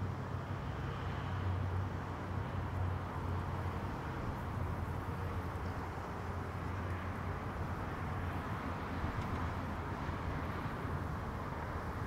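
Steady ambient noise of distant road traffic, a continuous low rumble, mixed with wind.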